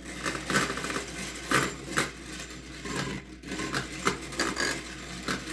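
Fork beating egg, water and vinegar in a small dish, with rapid, uneven clattering strokes against the dish.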